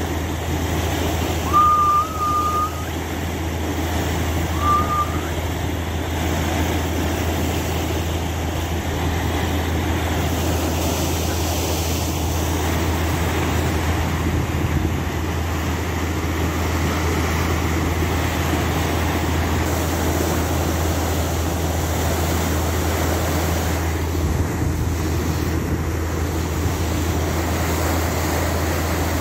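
Fishing boat's engine running steadily with a low hum, under the rush and splash of the bow wave. Two short high tones sound near 2 s and again near 5 s.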